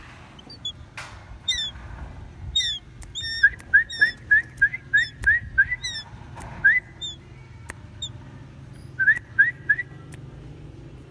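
Young shikra calling: short, sharp, rising whistles, with a fast run of about nine in a row a few seconds in and three more near the end, after a few thinner, higher calls.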